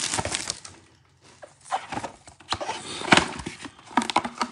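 A cardboard trading-card mega box being torn open by hand: a run of sharp cracks and crackles, with a short lull about a second in and the loudest crack about three seconds in.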